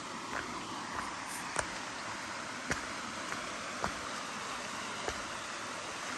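Steady rush of running water from a stream, with a footstep on the path about once a second.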